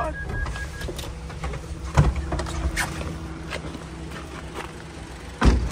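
Daihatsu Hijet's 660cc engine idling steadily, with a repeating electronic beep that stops about a second in. Two heavy thumps cut through it, about two seconds in and near the end, the second the loudest.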